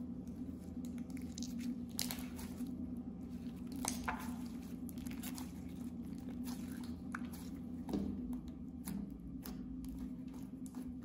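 Clear slime with makeup mixed in, stretched, squeezed and kneaded by hand: sticky squishing with irregular clicks and pops, louder about two, four and eight seconds in, over a steady low hum.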